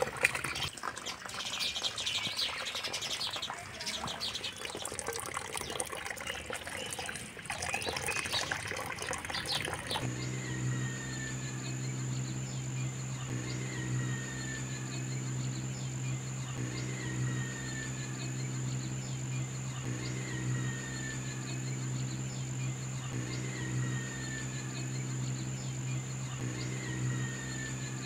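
Outdoor ambience: a mix of splashing and bird chirps, then a sudden change to a steady, high-pitched insect drone like crickets. Over the drone a short falling bird chirp repeats about every three seconds, above a low steady hum.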